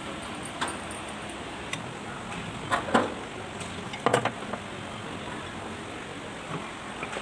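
Metal clinking and knocking a few times over a steady hiss, loudest about three and four seconds in.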